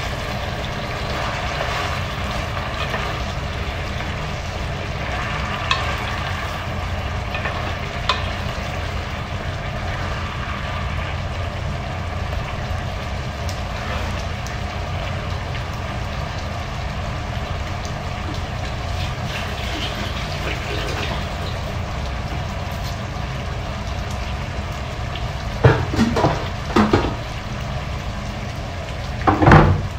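Chicken feet cooking in sauce in a pan, a steady sizzle and bubble, with a few sharp knocks about four seconds before the end and one more just before the end.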